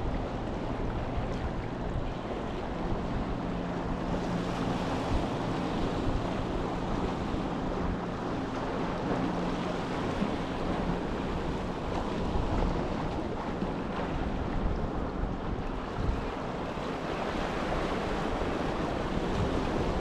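Sea waves washing and lapping steadily, with wind rumbling on the microphone. A faint low steady hum sits underneath for about the first half and then fades.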